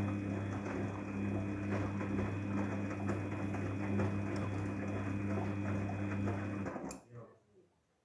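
Daewoo DWD-FT1013 front-loading washing machine turning its drum during the softener rinse: a steady motor hum with water and wet clothes sloshing, which stops abruptly about seven seconds in as the drum comes to rest.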